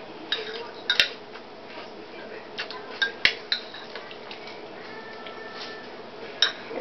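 Metal spoon clinking and scraping against a mug while scooping cereal, with scattered sharp clinks, the loudest about a second in and a little after three seconds in.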